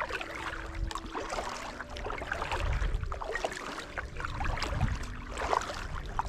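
Kayak being paddled on a river: the paddle dips and splashes irregularly, with water trickling off the blades over a low rumble.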